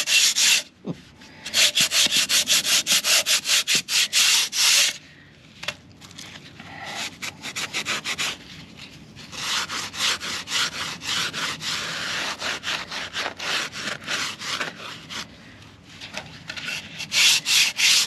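Sandpaper on a hand sanding block rubbed over hardened masonry filler on a concrete fence post in quick back-and-forth strokes, shaping and blending the repair. The strokes stop briefly twice and come softer through the middle, then loud again near the end.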